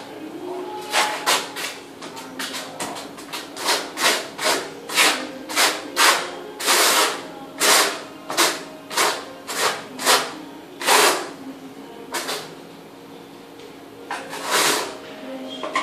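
Notched trowel scraping tile adhesive across the back of a 60 x 60 cm polished tile as the adhesive is back-buttered and combed into ridges. Short scraping strokes come about two a second, with a pause shortly before the end and one more scrape after it.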